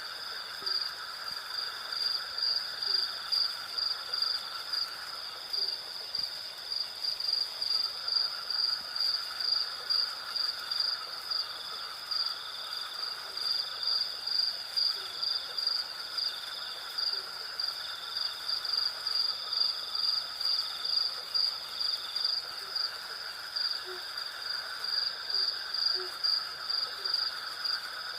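Night insect chorus of crickets and cicadas: a high, rhythmically pulsing trill over a steadier trill and a lower drone, with faint short low calls repeating every second or two.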